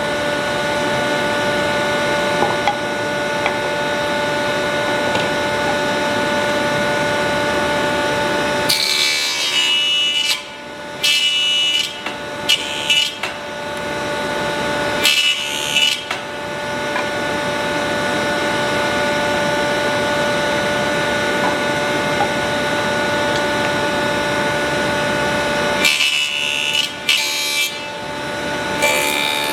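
A woodworking power tool running steadily with a hum. It stops about nine seconds in and again near the end, and the gaps hold short irregular sounds of hand work on wood.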